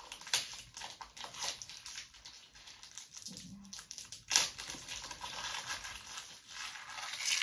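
Foil booster pack wrapper crinkling and rustling in the hands, with sharp crackles about half a second in and again near the middle.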